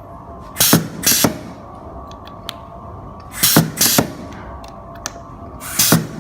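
Semi-automatic pneumatic vial crimping machine cycling: each cycle gives two short sharp bursts of air about half a second apart as the crimping head caps a vial, three cycles roughly every three seconds.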